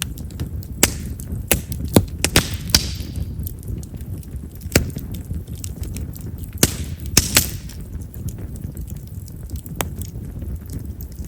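Chestnut-wood campfire crackling: sharp pops scattered every second or so over a low, steady rumble of flame, with two short hisses about two and a half and seven seconds in. Chestnut firewood is known for popping because of its large wood vessels.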